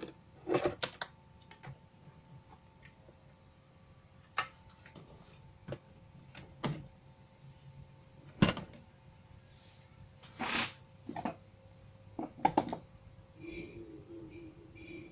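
Scattered clicks and knocks of wire connectors being pulled from a CRT TV's chassis board and the board being handled and turned over, with one sharper knock about eight seconds in and a brief scrape soon after. A faint steady hum comes in near the end.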